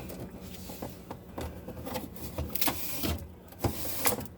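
Irregular knocks and clicks of food containers being handled and set down on refrigerator shelves, over a faint steady hum.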